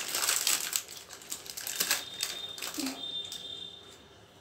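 Plastic wrapper crinkling as it is handled, a dense run of quick crackles and clicks that fades out after about three seconds, with a faint thin high tone partway through.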